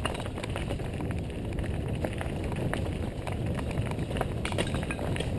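Downhill mountain bike being ridden down a dirt trail: steady wind rumble on the microphone with frequent sharp clicks and rattles from the bike over rough ground.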